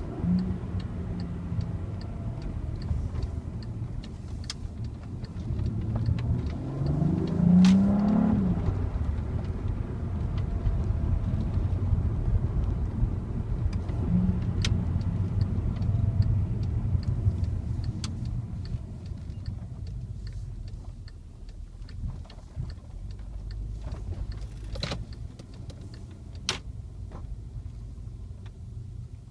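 Volkswagen Passat R36's 3.6-litre VR6 engine running while driving, revving up briefly about a quarter of the way in, then settling and growing quieter in the last third. A light, regular ticking runs through the first half.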